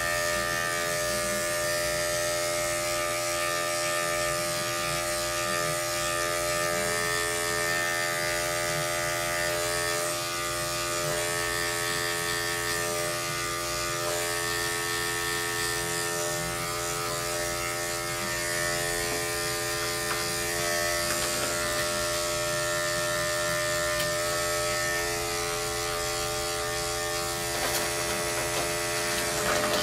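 Corded electric dog-grooming clippers with a #10 blade running with a steady buzz while clipping matted fur from a dog's armpit. A few faint clicks come near the end.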